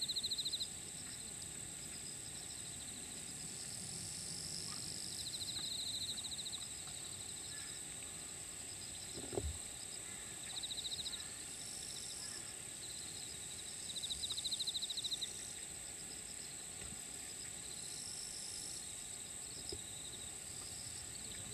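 Insects calling in grassland: a steady high-pitched drone, with short, rapidly pulsed trills coming every few seconds. A single sharp knock sounds about nine seconds in.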